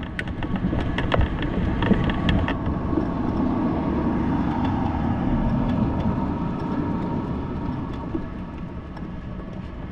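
Street traffic noise, swelling as a vehicle passes about three to six seconds in, with a few sharp clicks in the first couple of seconds.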